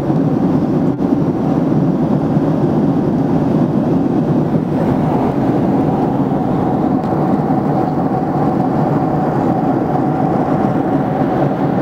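Steady cabin noise of an airliner in flight: a dense, even rush of engine and airflow noise, with a faint steady hum joining about halfway through.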